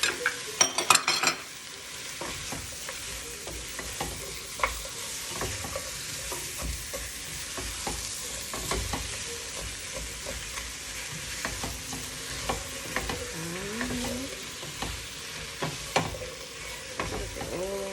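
Chicken and fresh cubes of pumpkin, squash and carrot sizzling in a hot pot as they brown, stirred with a utensil that knocks and scrapes against the pot. A few loud clatters come in the first second and a half.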